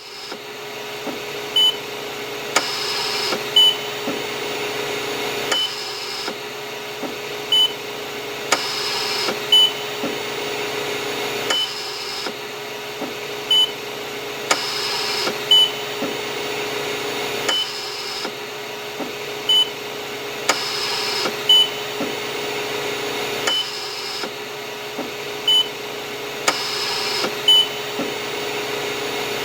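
Hospital mechanical ventilator cycling: a steady machine hum, with a rush of air lasting about three seconds that repeats every six seconds. Each cycle also has two short, high beeps about two seconds apart, which are the loudest sounds.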